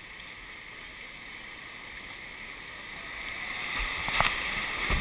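Rushing river water, steady at first and growing louder over the last two seconds as the kayak runs into a whitewater rapid, with a few sharp splashes about four seconds in.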